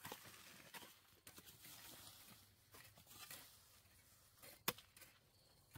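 Near silence: faint rustling and scattered light clicks, with one sharper click about three-quarters of the way through.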